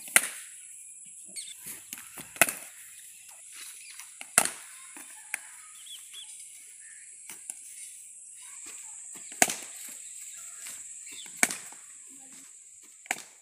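Cricket bat hitting throw-down balls: six sharp cracks about two seconds apart, with a longer gap in the middle and lighter knocks between them.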